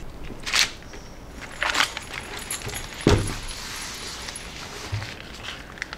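Handling noises: a few short rustles and clicks, with a soft thump about three seconds in.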